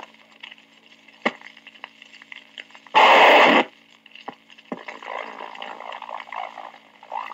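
Police radio Dictabelt recording played back at half speed: hiss and crackle over a steady low hum, with scattered sharp clicks. A loud burst of noise about three seconds in lasts about half a second.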